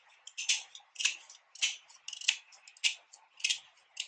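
Kitchen knife cutting into the tough, fibrous husk of a mango stone, prying it open along its looser side to reach the seed. Short, sharp crunching strokes come at a steady pace, nearly two a second.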